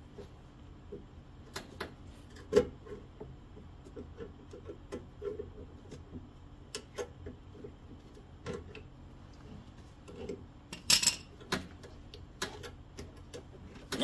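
Scattered light clicks and taps of pliers and a metal fuel hose clamp being worked off at a small engine's carburetor, over a faint low hum, with sharper clicks about two and a half seconds in and again around eleven seconds.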